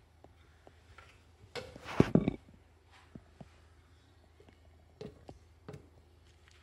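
Light knocks and clicks of kitchenware being handled, with one louder clatter about two seconds in and a few smaller knocks later, over a faint low hum.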